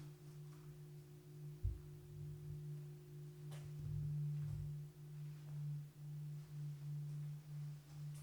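A steady low hum on a single tone that swells and dips in loudness, with a soft thump and a short click about a third of the way in.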